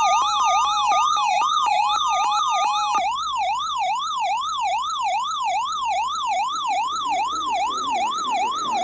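Electronic alert siren sounding for an emergency weather alert, a Severe Thunderstorm Watch. Its pitch sweeps up and down about three times a second. For the first three seconds it is joined by two steady tones and rapid clicking.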